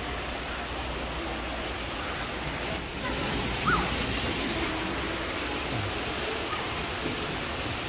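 Steady rushing background noise of a large store's open hall, with faint distant voices; the hiss grows a little louder about three seconds in.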